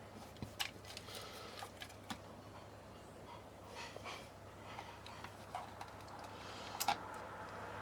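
Faint scattered clicks and taps of small plastic and metal parts being handled during reassembly, with a sharper click about seven seconds in, over a low steady hum.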